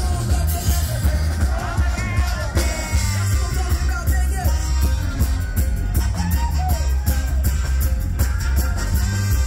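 Reggae rock band playing live, with electric guitar, bass guitar, drum kit, congas and trumpet over heavy bass, and a voice singing.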